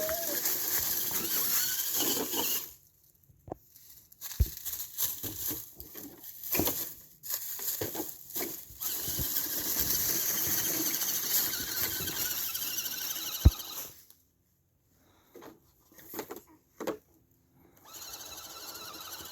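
Redcat Everest-10 RC rock crawler driving in stop-start bursts, its electric motor and gears whining high, with a few sharp knocks as it bumps over logs.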